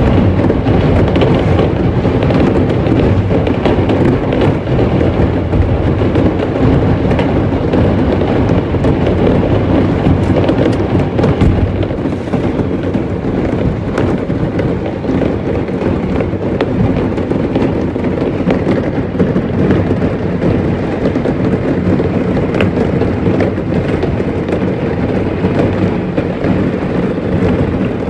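Dense fireworks barrage: a continuous low rumble of many overlapping bangs with crackling throughout.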